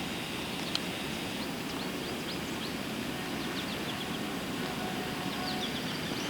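Birds chirping in the distance, many short high chirps scattered throughout, over a steady low background rumble.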